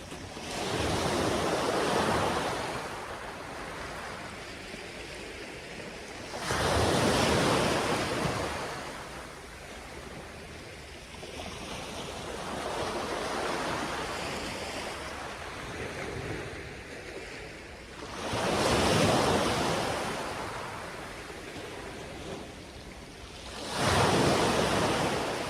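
Waves breaking and washing up the beach, each wash of surf swelling and fading over a couple of seconds, with four loud ones several seconds apart.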